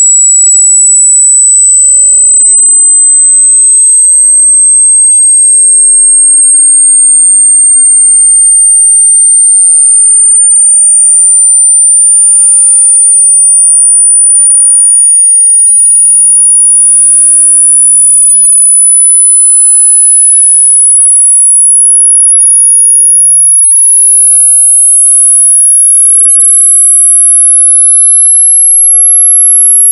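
A single very high-pitched pure sine tone, rising slowly in small steps. It is part of a hearing-test sweep that climbs through 6,000–20,000 Hz to find the highest pitch the ear can still hear.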